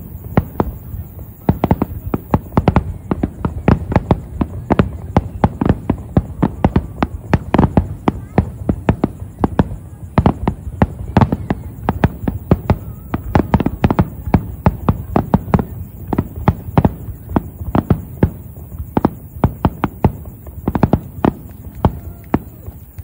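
Fireworks display: aerial shells bursting in a rapid, continuous barrage, several sharp bangs a second over deep booms.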